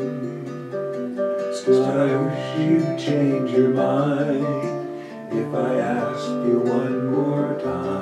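Nylon-string classical guitar strumming the chords of a slow folk song, with a voice singing along from about two seconds in.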